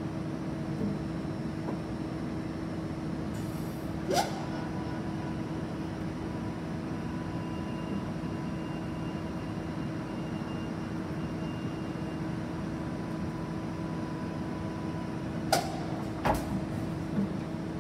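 Steady hum of a Tos Hulin SKQ12 NC CNC vertical turret lathe under power, with a few steady tones in it. A sharp metallic clack comes about four seconds in, and two more come close together near the end.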